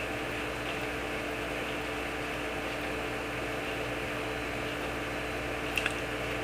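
Steady hum and hiss, like a fan or shop background. Near the end come two quick light taps, as the main jet is tapped down to drive the brass needle jet out of a Kawasaki H1 carburettor body.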